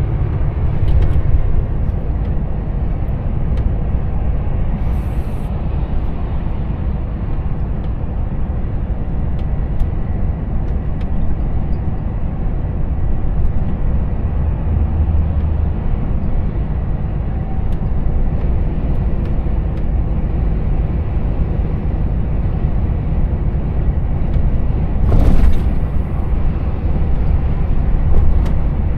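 Volvo FH 460 truck cruising at motorway speed, heard from the cab: a steady low drone of its 13-litre six-cylinder diesel mixed with tyre and road noise. One brief louder rush of noise comes near the end.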